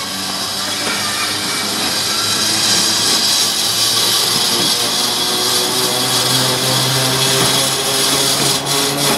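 Vintage AC electric locomotive of a metre-gauge railway approaching, its traction motors and gearing humming and whining over the grinding noise of its wheels on the rails. It grows louder over the first few seconds as it comes closer, then holds steady.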